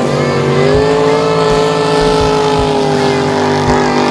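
Race jet boat's engine running hard at high revs as the boat speeds past; its pitch rises about half a second in, then slowly falls.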